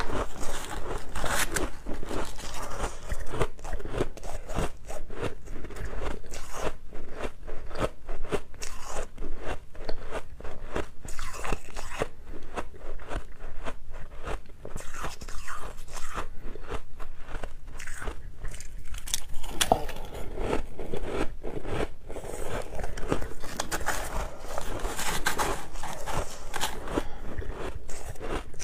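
Close-miked crunching of mouthfuls of soft white ice being bitten and chewed: a dense, rapid, irregular crackle of crunches.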